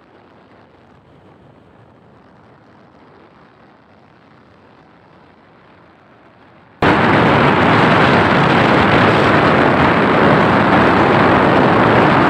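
Faint steady hiss, then about seven seconds in a sudden switch to loud, steady wind rushing over the microphone of a moving motorcycle.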